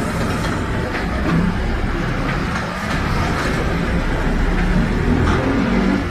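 Mercedes-Benz OF 1721 BlueTec 5 city bus engine running, heard from inside the bus cabin as a steady low drone with body noise.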